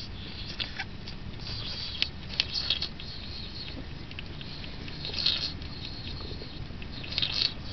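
European hedgehog lapping water from a saucer: clusters of small wet clicks and smacks coming in bouts every second or two.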